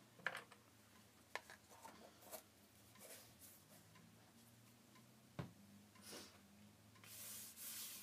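Faint handling of heavy art journal pages: soft paper rustling and a few light taps as the pages are turned and smoothed by hand, with a longer rustle near the end.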